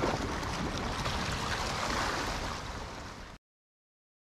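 Sea surf washing against a rocky shoreline, with wind rumbling on the microphone. The sound cuts off abruptly about three and a half seconds in.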